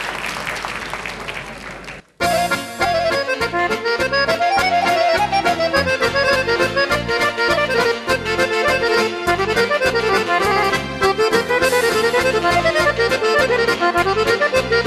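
Instrumental introduction of a Serbian folk song played by a folk band: accordions carry a running melody over a steady beat of bass and drum kit. Before it, a brief noisy wash cuts off about two seconds in.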